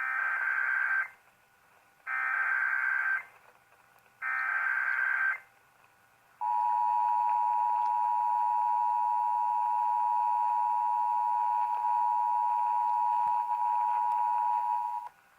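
Emergency Alert System header: three one-second bursts of SAME digital data tones about a second apart, then the steady two-tone EAS attention signal held for about nine seconds before cutting off, announcing an incoming alert.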